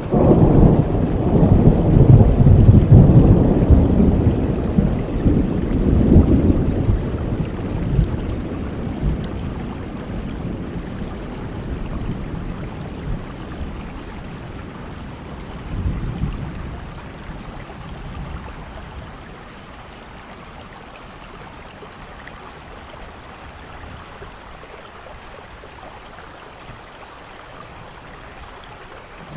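Thunderstorm: a long roll of thunder, loud and low, over steady rain. The rumble fades away over about fifteen seconds, swells briefly once more, then leaves only the rain's steady hiss.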